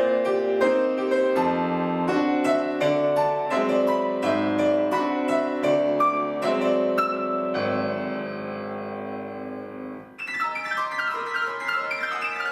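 Solo piano: two interweaving lines of notes, settling on a held chord that fades. About ten seconds in, a new passage of dense, high ringing notes starts suddenly.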